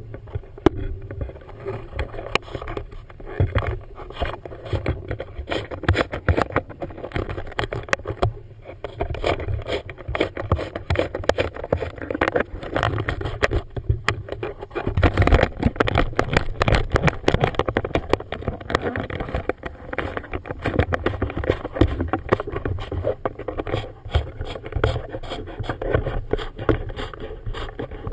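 Wind buffeting a GoPro camera housing, with a constant irregular low rumble and crackle, over choppy water slapping against a boat's hull.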